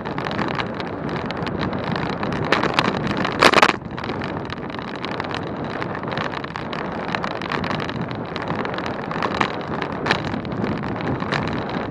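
Wind rushing over the microphone while riding a road bike, with steady road and tyre noise underneath; a brief louder gust about three and a half seconds in.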